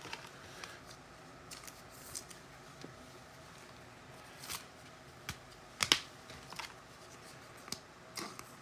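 Trading cards and their packaging being handled: scattered soft clicks and rustles as cards are sorted, with a sharper snap about six seconds in.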